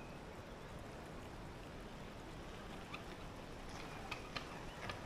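Quiet, steady background hiss with a few faint ticks or taps from about three seconds in.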